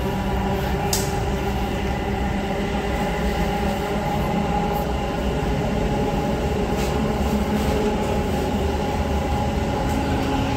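A Namma Metro train heard from inside the car: a steady rumble with several steady humming tones from the train's running equipment. A brief sharp click comes about a second in.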